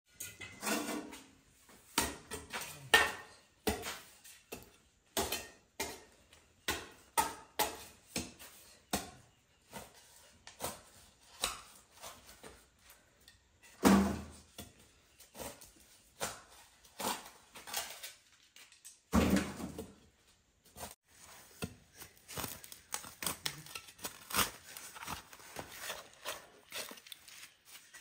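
Repeated irregular knocks and clatters of hard objects, roughly one to two a second, with two heavier, deeper thuds partway through.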